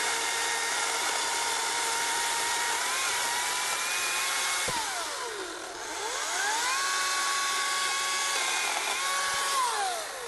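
Ryobi 14-inch 40V brushless cordless chainsaw running and cutting wood: a steady electric motor whine over the noise of the chain on the bar. About halfway through the whine falls away as the motor slows, then spins back up and holds, and it winds down again near the end.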